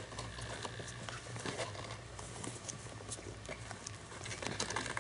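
Faint, scattered scratches and taps of a kitten's paws shuffling on a cardboard box.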